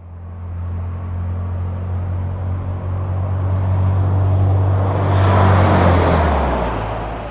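A motor vehicle passing close by. Its low engine hum grows louder with rising tyre and road noise, peaks about five to six seconds in, then drops in pitch and fades away.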